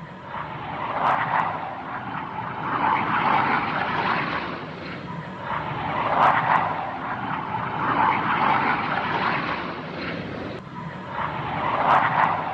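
Jet aircraft engine noise, a rushing roar that swells and fades in repeated surges every second or two.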